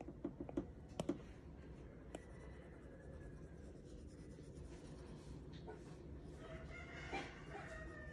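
Stylus tapping on an iPad's glass screen: a quick run of taps in the first second and one more about two seconds in, over steady background noise. Near the end an animal calls faintly in the background for about a second and a half.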